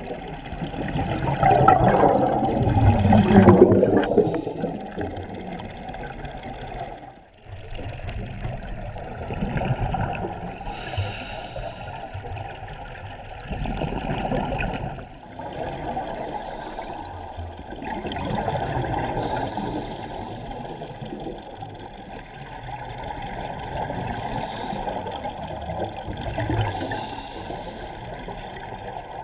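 Scuba divers' exhaled bubbles gurgling from their regulators, heard muffled through an underwater camera, swelling in surges every few seconds with each breath out; the strongest surge comes about two seconds in.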